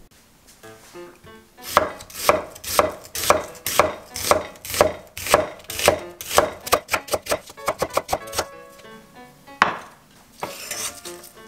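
Chef's knife slicing an onion on an end-grain wooden cutting board: a run of quick, even chops, about three to four a second, getting faster toward the end, then one last chop.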